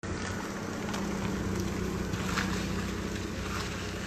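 A vehicle engine idling, a steady low hum, with faint ticks and street noise over it.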